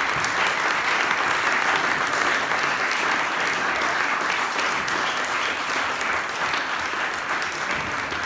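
Audience applauding steadily, a dense even clapping that eases slightly near the end.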